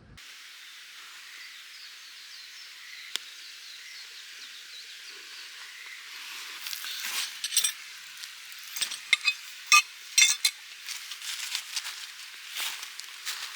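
Open wood fire hissing, with sharp pops and crackles that grow more frequent from about halfway through.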